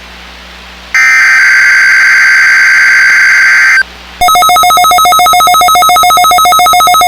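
Emergency Alert System header data burst, a harsh buzzing digital screech, sounding for about three seconds after a second of radio hiss. It breaks off briefly and is followed about four seconds in by a rapidly pulsing two-pitch electronic alert tone.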